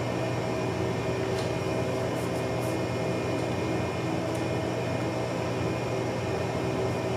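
Steady background hum made of several steady tones over a noise floor, with a few faint clicks in the first half.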